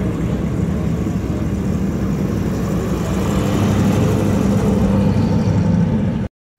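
Vintage Mercedes-Benz sedan engine running with a steady low note as the car drives slowly past. The sound cuts out to silence briefly near the end.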